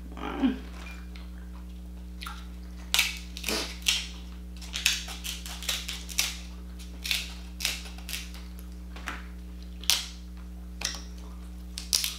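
King crab leg shell cracking as it is broken apart by hand: a string of sharp, irregular snaps and crackles.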